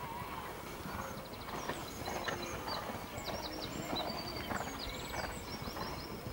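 Hoofbeats of a show-jumping horse cantering on sand arena footing, in a steady rhythm of about one and a half strides a second.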